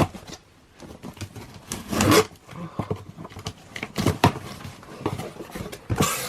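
A package being handled and opened: irregular rustling and crinkling of packaging with a few sharp knocks and clicks, loudest about two seconds in, around four seconds and near the end.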